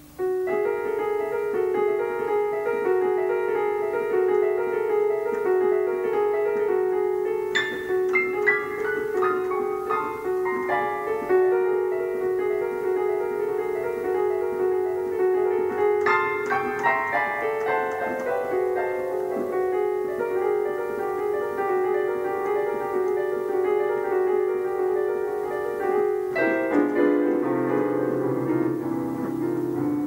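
Solo piano music played on an electronic keyboard: a repeating figure in the middle register under held chords, broken by quick runs of notes about 8, 16 and 27 seconds in. It starts abruptly.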